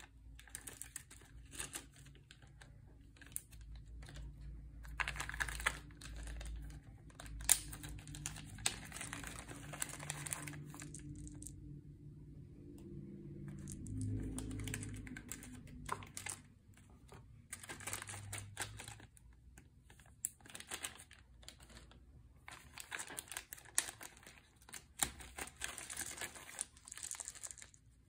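Thin plastic zip bags crinkling in bursts as they are handled and opened, with small game pieces clicking against each other.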